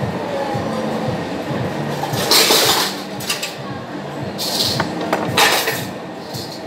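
Chef's knife clinking and scraping against halved avocados: a half-second scrape about two and a half seconds in, then a few shorter clinks, over a steady kitchen hum.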